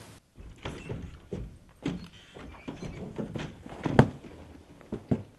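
A series of thuds and knocks as a man tumbles on the ground, with a loud, sharp knock about four seconds in.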